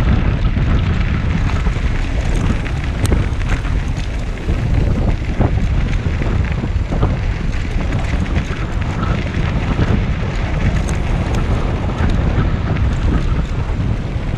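Steady wind noise on a GoPro's microphone as a recumbent trike rolls along a dirt trail, with scattered small clicks from the tyres over grit.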